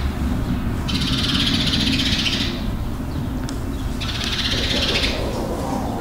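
Chicken farm ambience: a flock of chickens over a steady low rumble. Two bursts of high hissing noise, each about a second and a half long, start about a second in and about four seconds in.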